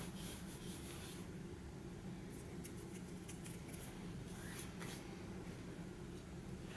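Faint scratches and light clicks from small helmet fittings and a leather strap being handled on a cloth, coming in a few short bunches, over a steady low hum.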